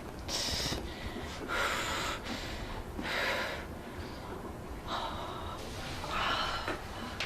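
A person breathing in and out audibly: about five noisy breaths, each under a second, with short gaps between them.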